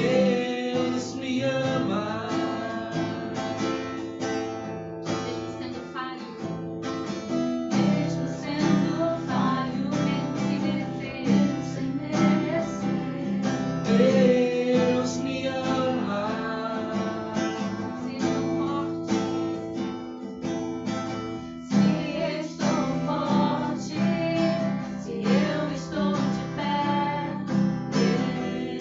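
Worship song: strummed acoustic guitar with a singing voice carrying the melody.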